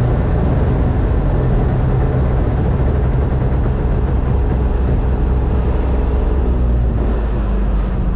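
Combine harvester running steadily, a loud low engine drone with machinery noise over it, easing slightly about seven seconds in.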